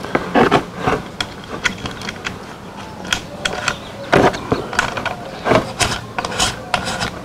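Irregular clicks and small knocks of hard plastic as a side handle is fitted and screwed onto the nose of a rotary tool by hand.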